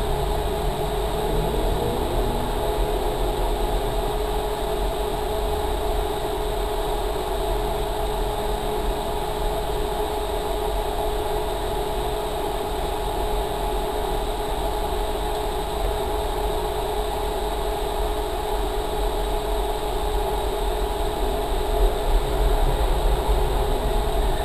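Ford Focus rally car's engine running at a steady speed while the car stands still, heard from inside the cabin, with a few louder bumps near the end.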